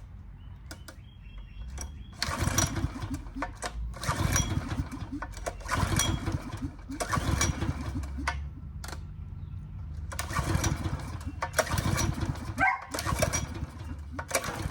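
Small portable generator engine being pull-started by its recoil rope, again and again: about seven pulls, each cranking the engine over in a short burst that does not catch and run. It sputters as if it wants to start while still running on old, stale fuel after a carburetor cleaning.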